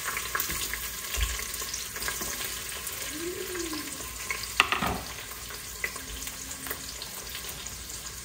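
Sliced onions sizzling in hot oil with bay leaves and green chillies in an Instant Pot's inner pot, at the start of frying them to golden brown. A utensil stirs them, with scattered scrapes and one sharp clink about four and a half seconds in. The sizzle eases slightly toward the end.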